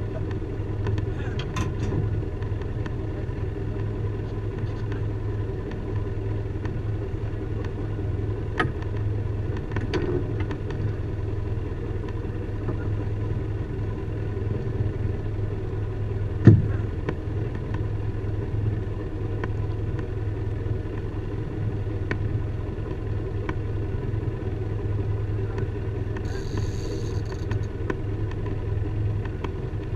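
Boat engine running steadily with a low hum. There are scattered light clicks, a sharp knock about halfway through, and a brief high buzz near the end.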